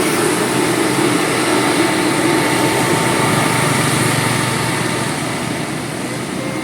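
A large vehicle, most likely a bus, passing close by: engine and road noise, loud and fading slowly toward the end.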